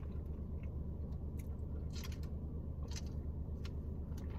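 Soft mouth sounds of a person eating and sipping soda through a straw: a few short clicks and slurps, about a second apart, over a steady low hum.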